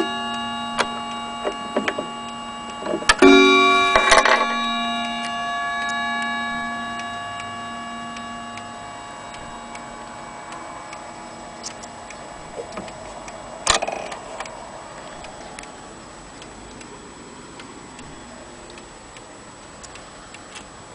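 Hermle wall clock's gong struck by its hammer several times in the first few seconds, each stroke ringing with several tones that slowly fade, and one more strike about 14 seconds in. The clock's movement ticks steadily underneath.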